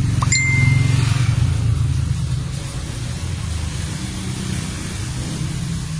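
Steady low machine hum, with a short high beep about a third of a second in.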